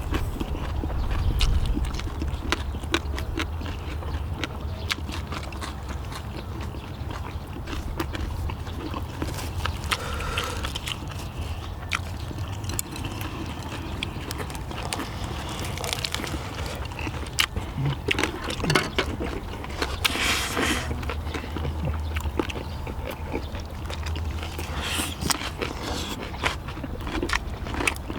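People chewing and biting food, with frequent short clicks of chopsticks and utensils on dishes, over a steady low rumble.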